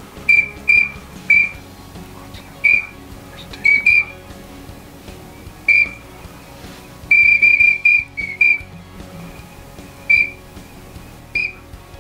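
Whistled duck calls: short, high, single-pitch peeps in irregular runs of one to five, with a quick string of them about seven seconds in.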